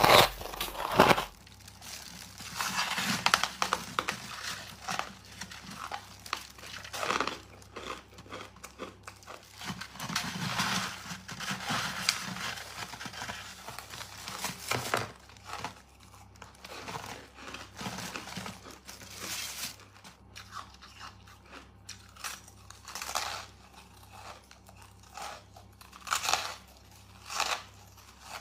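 Close-miked biting and chewing of crunchy white freezer-frost ice. It opens with a loud crunching bite and a second crunch about a second later, followed by continuous crackly chewing. In the second half the chewing thins out into occasional separate crunches.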